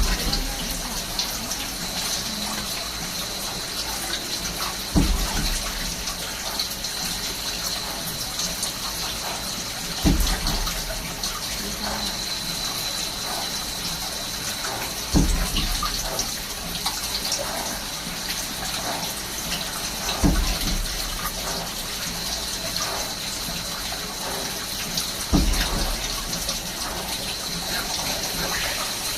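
Swiss-type CNC lathe running with coolant spraying in a steady gushing hiss over a thin high whine. A low thump repeats at an even pace about every five seconds.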